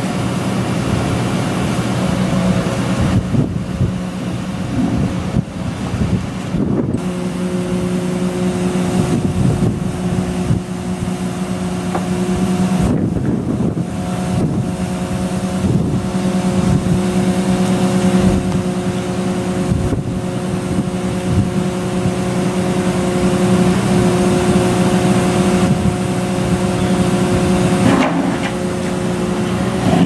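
Hyundai R300LC-9A excavator's engine and hydraulics running steadily as the Daedong pile driver attachment is positioned and clamped onto a steel sheet pile: a constant hum at several fixed pitches, with a few short knocks of steel on steel.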